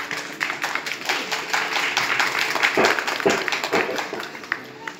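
Fast, rhythmic percussion for a bhaona dance: a dense run of sharp, evenly spaced strikes, with a few deep thumps about three seconds in, thinning out near the end.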